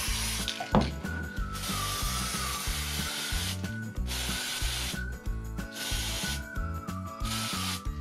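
Aerosol spray can hissing in repeated bursts, the longest lasting about two seconds.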